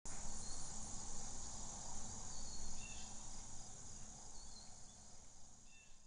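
Outdoor ambience of insects shrilling steadily and high-pitched, with a low rumble underneath and a few faint short chirps.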